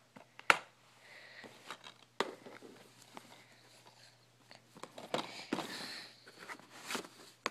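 Handling of plastic DVD cases: a loud sharp click about half a second in, another about two seconds later, then a stretch of rustling and a further click near the end.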